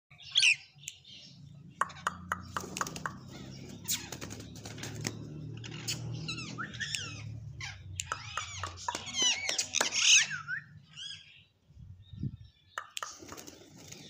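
Rose-ringed parakeets chattering and squawking in quick sliding calls, busiest about half a second in and again from about six to ten seconds in, with sharp clicks between about two and five seconds in over a low rumble.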